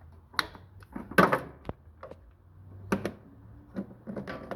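A few clunks and knocks as a portable jump starter pack and its clamps are taken off the tractor's battery and handled, the loudest about a second in.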